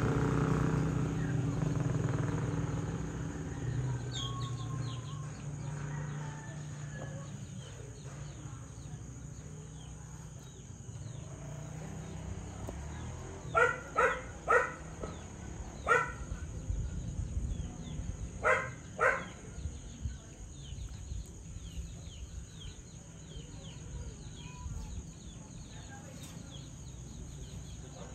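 An engine fades away over the first few seconds. Small birds then chirp outdoors, with six loud, short calls in two quick groups in the middle. A low steady hum runs underneath.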